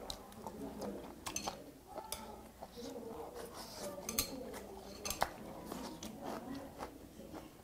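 Stainless-steel chopsticks clicking now and then against plates and side dishes, with quiet chewing in between.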